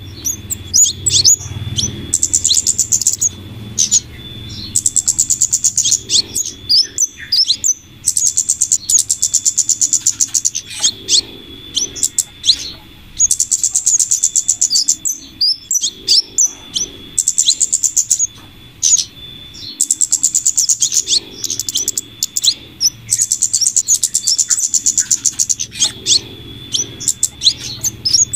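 Bird-lure recording of flowerpecker (kemade) calls combined with female scarlet minivet calls: rapid, high-pitched ticking trills in runs of a few seconds, broken by short sharp chirps, repeating as a loop.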